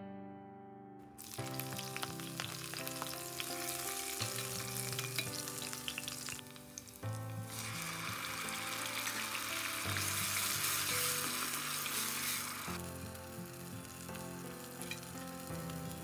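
Chopped onions frying in oil in a stainless steel pot, sizzling, starting about a second in. The sizzle grows louder for several seconds from about seven seconds in, as blended tomato is poured in, then settles back.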